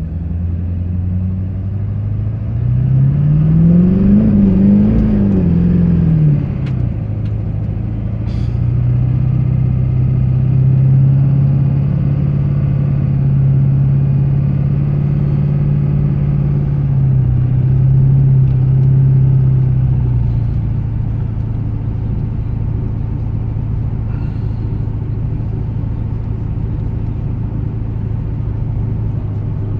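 Truck engine heard from inside the cab, revving up as it pulls away, its pitch climbing, dipping briefly and climbing again before falling back, then settling into a steady cruising hum that drops a little in pitch about twenty seconds in.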